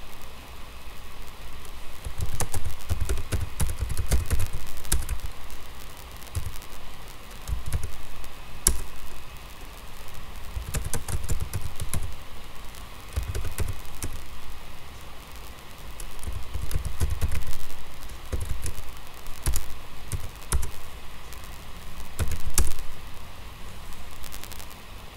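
Typing on a computer keyboard: bursts of key clicks and thumps, with short pauses between, over a steady hiss.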